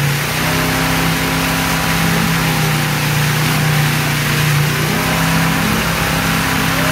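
Engine of the boat pulling a wakesurfer, running at a steady speed with a constant drone, over the hiss of the churning wake.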